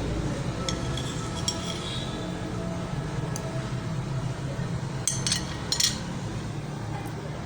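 Kitchen utensils and glassware clinking as a remedy is prepared: a few light clinks about a second in, then a louder cluster of clinks with a short ringing tail about five to six seconds in. A steady low hum runs underneath.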